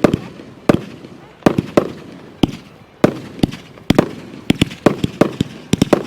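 Consumer fireworks going off in a rapid, irregular series of sharp bangs, each with a short ringing tail. The bangs come faster toward the end.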